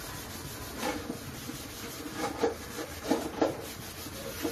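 A few short, irregular rubbing and scraping sounds, about six in four seconds, from handling while cooking oil is poured from a plastic bottle into a hot frying pan.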